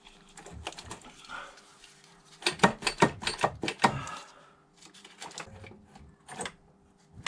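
A quick, uneven run of sharp metallic clicks and clatter lasting about a second and a half, from hand tools working bolts on top of an engine, followed by a couple of single knocks.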